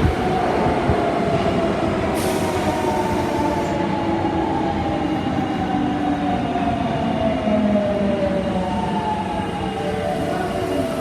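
Osaka Metro Tanimachi Line subway train running, its motor whine falling slowly in pitch as the train slows. A short hiss comes about two seconds in.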